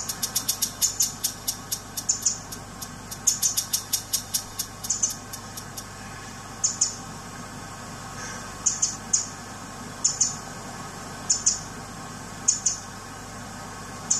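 Short, high-pitched squeaks of a hand-blown deer call, used by a hunter to call in Sitka blacktail deer, repeated every second or so and often in pairs. A rapid run of sharp clicks, about five a second, goes along with them for the first half.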